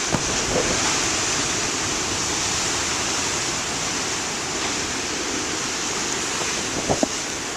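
Storm surf breaking and washing in, a steady, dense roar of water noise, with two brief clicks, one just after the start and one about seven seconds in.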